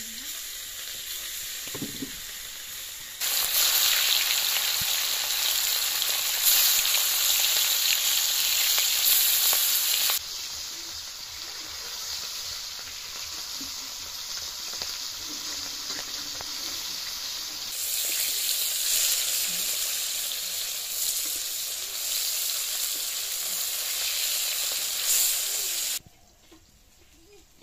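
Pieces of fish coated in turmeric and salt sizzling in hot oil in an iron kadai, turned now and then with a steel spatula. The sizzle grows louder about three seconds in, eases off partway through, swells again, then cuts off sharply near the end.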